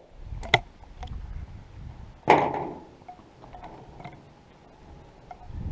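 Handling of a single-shot 12-gauge shotgun after the shot: sharp metallic clicks, with a louder clack about two seconds in that rings briefly, typical of the action being opened and the spent shell coming out.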